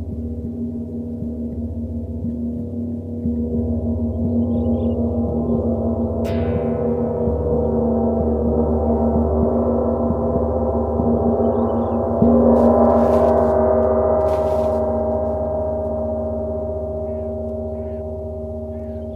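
Two suspended gongs, a Bifrost titanium gong and a Water gong, ringing together in a sustained wash of many tones. The sound swells, with a mallet stroke about six seconds in and a louder one about twelve seconds in, and then slowly fades.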